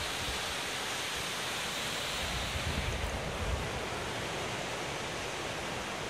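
Steady wash of surf breaking on the beach, with low wind rumble on the microphone.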